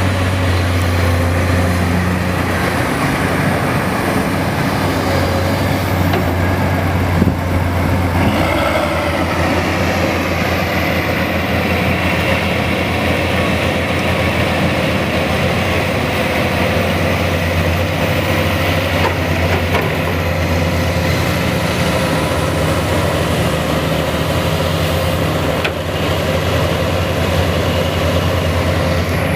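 Excavator's diesel engine running steadily with a deep hum, its sound shifting about eight seconds in.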